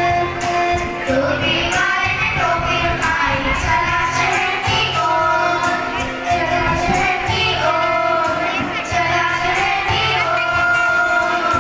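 A group of children singing a song together with instrumental accompaniment and a steady beat.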